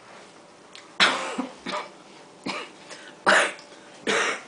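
A person coughing: about five short, harsh coughs starting about a second in, spread over three seconds or so.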